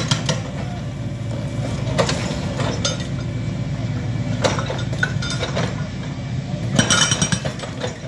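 Hydraulic breaker on an excavator hammering a concrete slab: a fast, steady pounding of the steel chisel, with a few sharp metallic clinks in the middle. The blows grow louder and sharper a little before the end.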